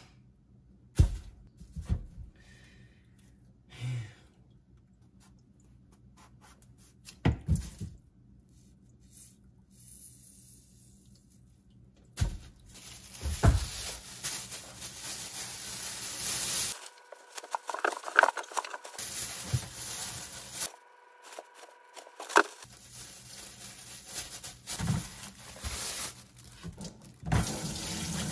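Knocks of radishes and a knife against a stainless-steel sink, then a black plastic bin bag rustling as the radishes and their leaves are scooped into it. Near the end the tap runs as the knife is rinsed.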